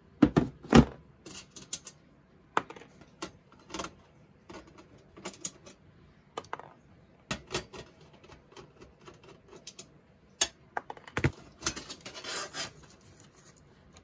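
Hands and a screwdriver working at a steel PC case drive cage, making scattered metal clicks, knocks and rattles as screws are undone and the drives are worked loose. There are two loud knocks at the start and a short scrape near the end.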